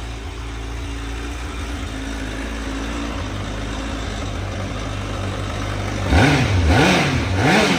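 1998 Honda CBR1000F's inline-four engine idling steadily, then revved three times in quick succession about six seconds in, each rev rising and falling in pitch.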